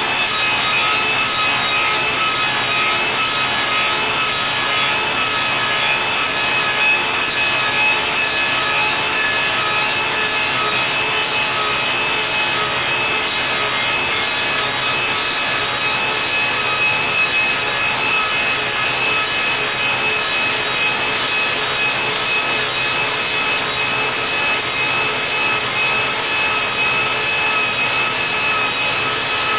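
Vintage saw-type copy lathe turning a hickory axe handle: the cutter shaves the spinning wood with a continuous rasping cut over the steady whine of the belt-driven machine.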